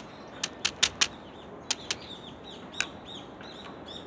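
Small wild birds chirping, a run of short repeated chirps in the second half. Several sharp clicks come in the first three seconds, the loudest about a second in.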